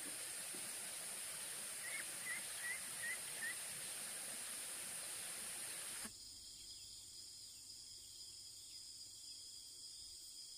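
Forest ambience: a steady high insect drone, with a short run of five quick chirps about two seconds in. About six seconds in the background cuts to a quieter, different insect hum made of several steady high tones.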